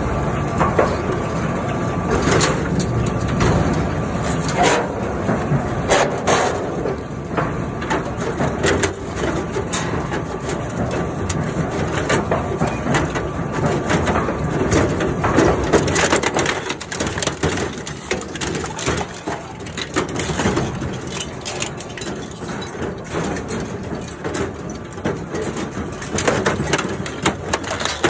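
Twin-shaft shredder's hooked steel cutters tearing into a rusty steel cargo tricycle: a continuous grinding crunch broken by irregular snaps and metal clanks as the frame and sheet-metal bed are pulled into the blades.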